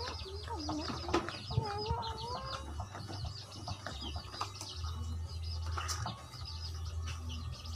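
Chickens clucking nearby, with one drawn-out wavering call about a second and a half in, over many short high bird chirps repeating throughout. A few sharp knocks come from a spatula in a metal pan, over a steady low hum.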